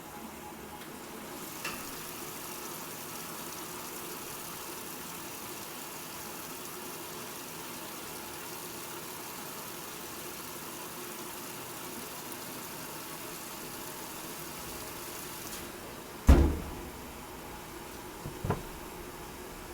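Old washing machine running with a steady hum. A hiss sets in about a second in and stops a few seconds before the end. Then comes one loud clunk, followed by two smaller knocks near the end.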